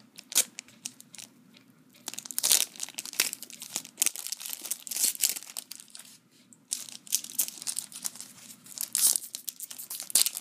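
Foil Yu-Gi-Oh booster pack wrapper being torn open and crinkled by hand, a string of irregular crackles and rips.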